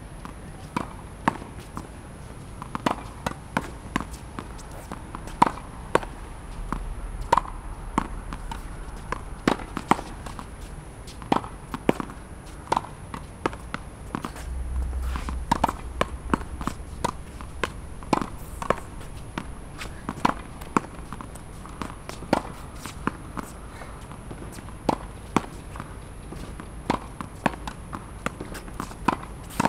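Tennis ball hit against a practice wall again and again: racket strikes, thuds off the wall and bounces, roughly two sharp knocks a second in an uneven rally rhythm.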